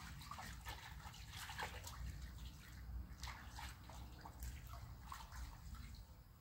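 Faint small splashes and trickles of water at the dock's edge, coming as scattered short strokes, over a low steady rumble.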